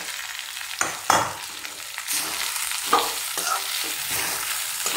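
Steel spoon scraping and knocking against a steel kadhai as soaked poha is stirred and turned, with a few sharper scrapes about a second in and around three seconds in, over a steady sizzle of frying.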